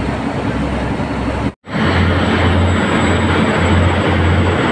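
Motorboat engine running at speed with wind and water rush, heard from on board. The sound cuts out briefly about a second and a half in, then comes back with a stronger low engine drone.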